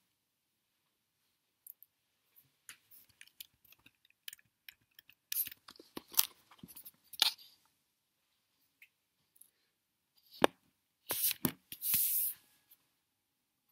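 Handling noise from the recording device as it is picked up and moved by hand: scattered small clicks, taps and rubbing, a sharp knock about ten seconds in, then a short rustle.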